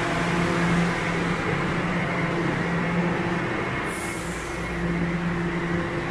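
Steady rumble of a subway train at the station, with a low hum that drops in and out and a short hiss about four seconds in.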